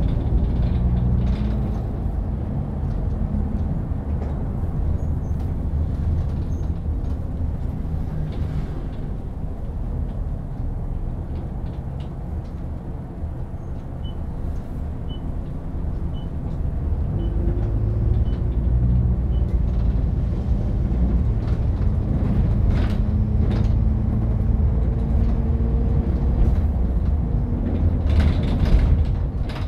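Bus engine and road noise heard from inside a moving bus: a steady low rumble, with the engine note rising a little after the middle as the bus gathers speed. Occasional rattles and knocks, the loudest near the end, and a faint high pip about once a second for a few seconds midway.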